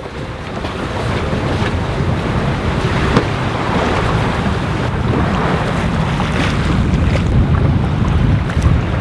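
Wind buffeting the microphone, with water rushing past the hull of a sailing yacht under sail in a fresh, gusty breeze; a steady, rumbling rush.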